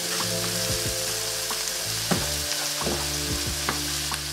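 Diced vegetables with tomato paste and turmeric sizzling in butter in a wide nonstick pan, stirred with a wooden spatula, with a few light taps and scrapes of the spatula against the pan.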